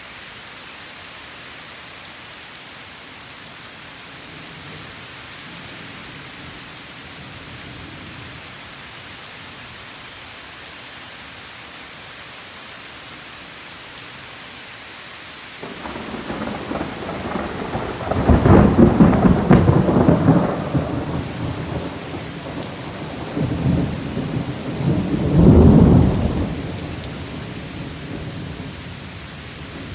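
Steady rain falling, then a long roll of thunder that builds about halfway through, swells twice and fades near the end.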